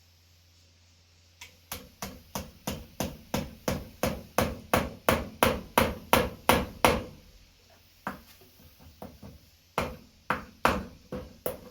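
Hammer striking a small nail into a boot's rubber sole: a fast run of about twenty blows, roughly three a second and growing louder, then a pause with a few light taps and four more blows near the end.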